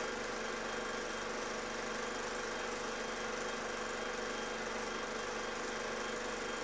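Steady mechanical hum with hiss, unchanging throughout, carrying a few constant tones.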